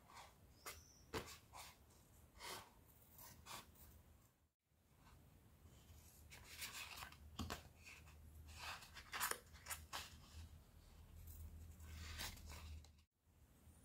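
Scissors cutting through a thin EVA foam sheet: faint, irregular snips and scraping rustles of the foam.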